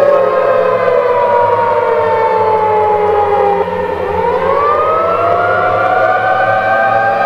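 Civil defense siren sounding several tones at once: the pitch falls for about three and a half seconds, then winds back up about four seconds in and levels off at a high steady tone.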